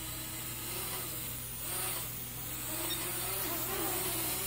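Syma X11 mini quadcopter in flight, its small motors and geared propellers giving a faint whine whose pitch wavers up and down as the throttle shifts, over a steady hiss.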